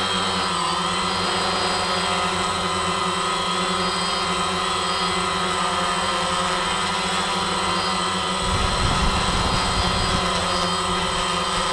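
DJI quadcopter's electric motors and propellers running with a steady multi-toned whine, heard through the GoPro mounted on the drone. About eight and a half seconds in, a rough low rumble joins as the drone sinks close to the grass.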